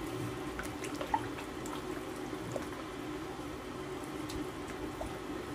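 Wooden spoon stirring a thick, simmering tomato-and-pepper sauce in an aluminium pot: soft liquid stirring and bubbling, with a few faint clicks, over a low steady hum.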